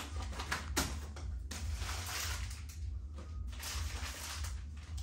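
Granulated sugar poured into a storage container: a grainy hiss that swells and fades several times, over a steady low hum.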